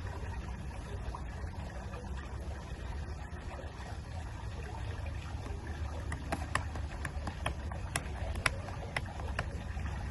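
Blind-box packaging being torn open and handled: a run of sharp crackles in the second half over a steady low background rumble.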